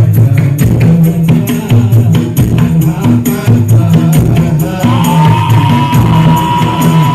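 Music played loud through a carnival sound system: a heavy bass beat with tambourine-like percussion. About five seconds in, a long held high note enters over it.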